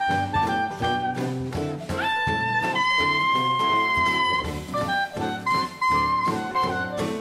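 Background jazz music with a steady beat and long held notes in the middle.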